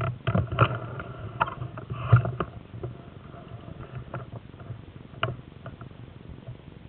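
Irregular clicks and knocks with rustling: handling noise from an airsoft rifle and its mounted camera moving among tree branches. The clicks come thickly in the first two seconds or so and thin out after, with one sharp click about five seconds in.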